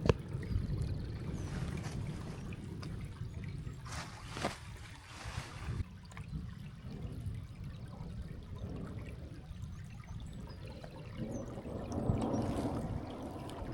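Rain on a tent during a thunderstorm, over a steady low rumble that swells about twelve seconds in.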